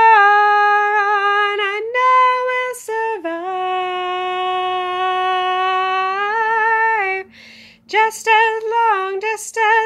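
A woman singing unaccompanied. She holds long, steady notes for about seven seconds, the last one with vibrato, takes a short breath, then sings quicker words near the end.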